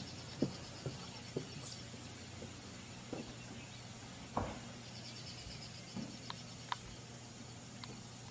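Pasture ambience: a steady hiss with insects trilling rapidly and high in two spells, one short rising chirp and scattered faint clicks.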